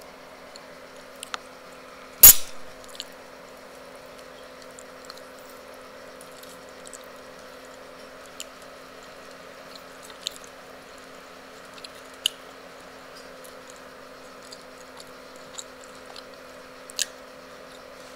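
Close-up eating sounds: chewing and scattered small clicks and crackles as roasted chicken is eaten and pulled apart by hand, over a steady low hum. One loud, sharp knock about two seconds in is the loudest sound.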